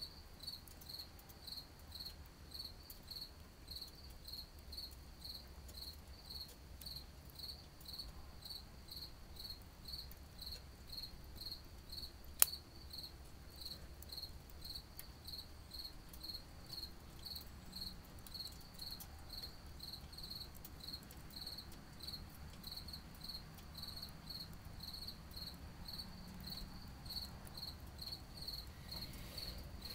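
A cricket chirping steadily in short, even, high-pitched chirps about twice a second. There is one sharp click about twelve seconds in.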